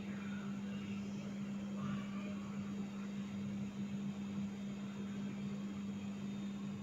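Steady low hum over faint background hiss: room tone with a constant electrical or fan hum.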